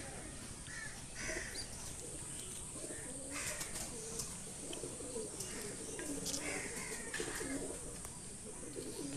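Pigeons cooing softly in low, wavering calls, with a few short higher calls among them.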